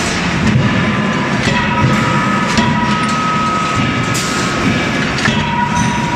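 Loud, steady din of forge machinery around a CNC hydraulic die forging hammer, with a whine that comes and goes and scattered metallic clanks as hot billets are handled at the dies.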